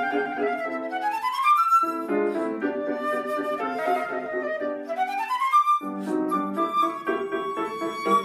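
Concert flute and grand piano playing together, piano chords under the flute line. Twice a fast rising run climbs while the piano chords stop, and from about six seconds in a long held high note sounds over the piano.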